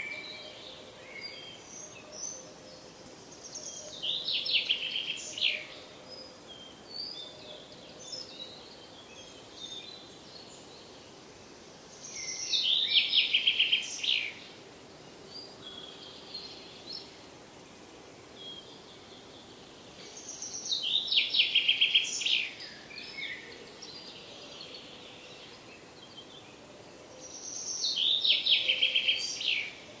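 Woodland birdsong: one songbird repeats the same short, rapidly trilled song four times, about every eight seconds, each about two seconds long. Fainter chirps from other birds fill the gaps.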